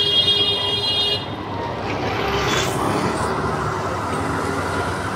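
A vehicle horn held on one steady note, cutting off about a second in, followed by the steady noise of street traffic.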